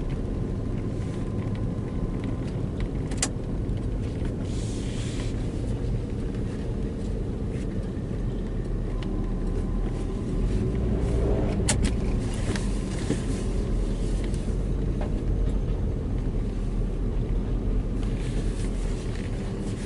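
Car engine running, heard from inside the cabin as a steady low rumble with road noise, and two sharp clicks, one a few seconds in and one about twelve seconds in.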